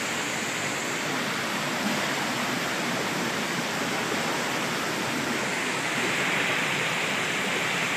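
Stream water rushing and splashing steadily through the gaps between boulders.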